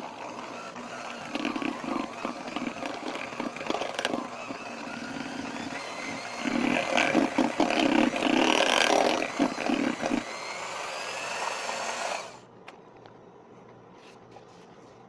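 Panasonic electric hand mixer running, its beaters churning a butter, sugar and egg cookie batter in a glass bowl, with occasional knocks against the bowl. It runs louder for a few seconds around the middle, then is switched off about twelve seconds in.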